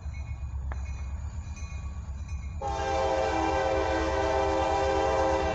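Diesel freight locomotive's air horn sounding one long blast for a grade crossing, a chord of several tones that starts suddenly about halfway through and holds. Before it there is only a steady low rumble.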